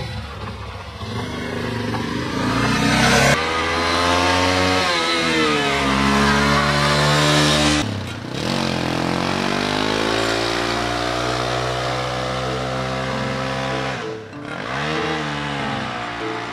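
Off-road motorcycle engine pulling away and accelerating through the gears: the pitch climbs, drops sharply at an upshift about halfway through, climbs again, and drops once more near the end.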